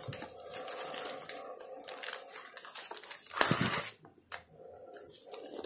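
Plastic packaging of a cross-stitch kit crinkling and rustling as the fabric and thread are pulled out and handled, with one louder rustle about three and a half seconds in.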